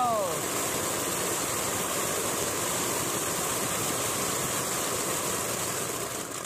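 Glittering Peacock Diwali fountain firecracker spraying fanned jets of sparks with a steady hissing rush. A short falling whistle sounds right at the start, and the hiss dies away at the very end.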